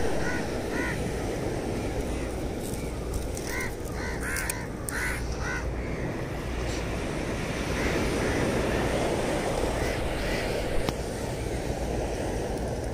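Crows cawing in short harsh calls, a few at the start and then a quick series of about six a few seconds in, over a steady rush of wind and surf.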